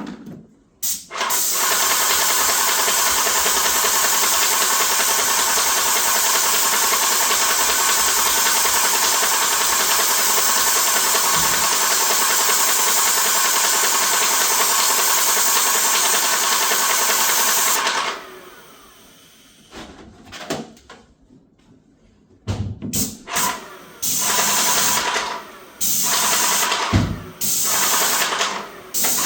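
Graco 390 airless paint sprayer pump running steadily for about seventeen seconds, then stopping. Near the end it starts and stops again in short bursts of a second or two.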